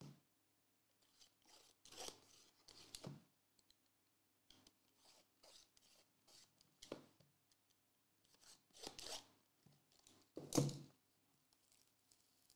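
Box cutter blade slitting the seals on a sealed trading-card box: faint, scattered cutting and scraping strokes. The loudest handling sounds come about nine and ten and a half seconds in, as the box is worked open.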